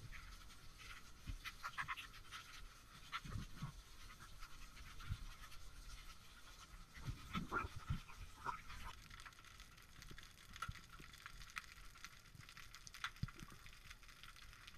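Camera audio in an underwater housing: muffled, irregular knocks, scrapes and water movement as the diver moves through kelp, over a faint steady hum.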